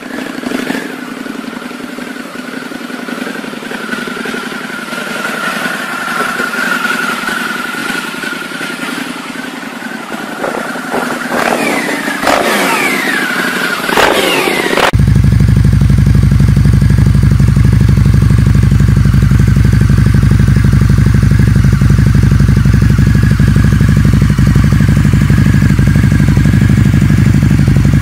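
Custom Harley-Davidson V-twin motorcycle engines. The first part has a bike running and revving, its pitch rising and falling in several blips near the middle. About halfway there is an abrupt cut to a much louder, deep, steady V-twin rumble.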